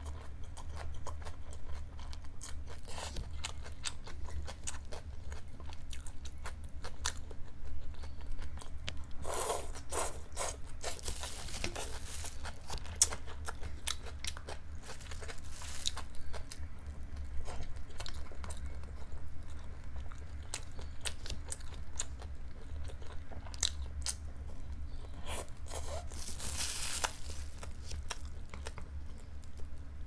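Close-miked chewing and crunching of cold liangpi noodles with shredded cucumber, with many wet mouth clicks and a few longer noisy stretches, one near the middle and one toward the end.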